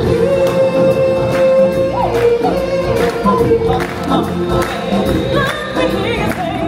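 Stage-show music: a choir of singers over a band track with a steady beat, one note held for about two seconds near the start.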